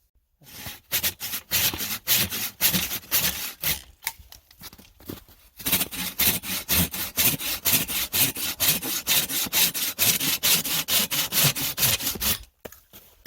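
Hand saw cutting through firewood in quick, regular back-and-forth strokes. The sawing pauses briefly about four seconds in, then resumes steadily until it stops near the end.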